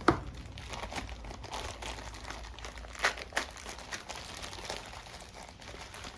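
Plastic packaging of a battery acid pack crinkling as it is handled and unwrapped, with a sharp click right at the start and two louder crackles about three seconds in.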